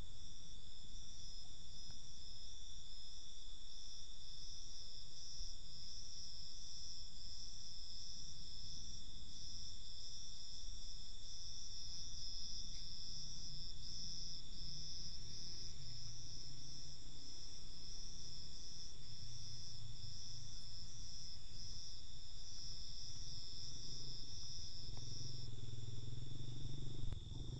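Insects chirping in an even pulsing rhythm over a steady high hum; the chirping stops near the end.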